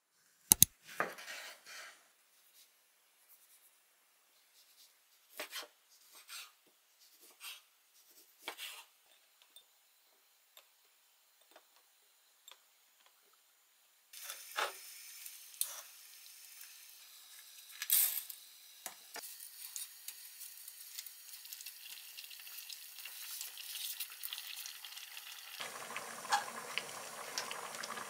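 Kitchen sounds: scattered light taps and clinks as glass bowls and cut vegetables are handled, with quiet gaps between. About halfway a steady hiss comes in with a few clinks of cookware, and near the end a pot boiling on the gas stove adds a fuller, steady bubbling.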